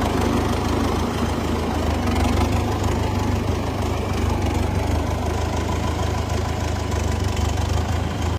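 Tractor diesel engine running steadily and loud, a deep even rumble that cuts off abruptly at the end.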